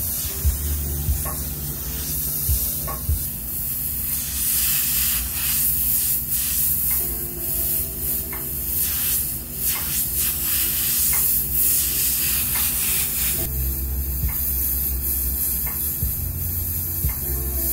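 Airbrush hissing as it sprays paint, the air swelling and fading as the trigger is worked on and off, with a low steady hum underneath.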